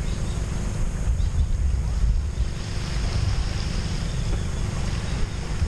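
Wind buffeting the microphone: a loud, unsteady low rumble over a steady hiss.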